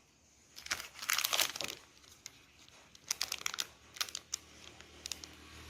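Packaging crinkling and crackling as it is handled, in bursts with sharp clicks: about a second in, again around three seconds and around four seconds.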